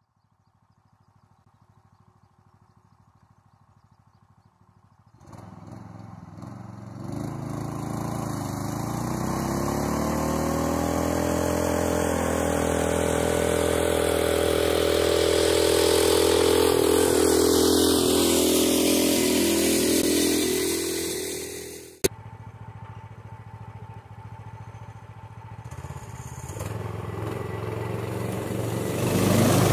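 Small 18 hp Duromax gasoline engine in a repowered Farmall H tractor, running steadily as the tractor mows with a bush hog in tow. It is faint at first and grows louder as the tractor comes nearer, loudest about two-thirds through. After an abrupt cut it is quieter and builds again near the end.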